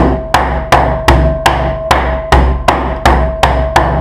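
The base of a small metal pot used as a meat mallet, pounding slices of beef topside through a plastic vacuum bag on a cutting board to flatten and tenderise them for rouladen: about eleven even blows, close to three a second.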